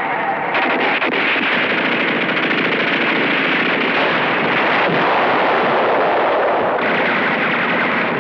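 Sustained battle gunfire: rifles and machine guns firing in a dense, unbroken barrage.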